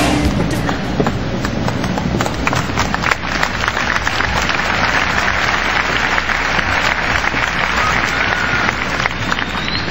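Large arena crowd applauding in a dense, steady patter of many hands clapping. The end of a song fades out just as it begins.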